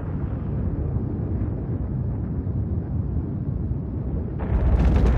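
Deep, continuous rumble of a nuclear explosion. A harsher rushing noise joins near the end as the rumble swells louder.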